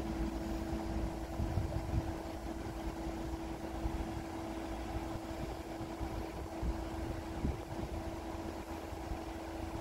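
A van's engine idling at a steady pitch, with an uneven low rumble underneath.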